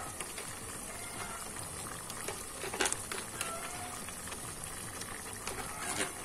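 Yellow coconut-milk curry bubbling steadily in a wok, with two sharper clicks, about three seconds in and near the end.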